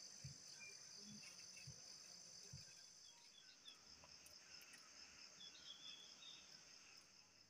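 Faint, steady insect chorus, a continuous high trill, with a few faint short chirps over it and a few soft low thumps in the first three seconds.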